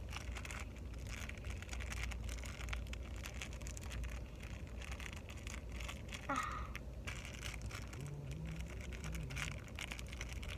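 Clear plastic bag crinkling as it is handled and picked open, over a steady low rumble of a car interior. A brief sliding squeak about six seconds in.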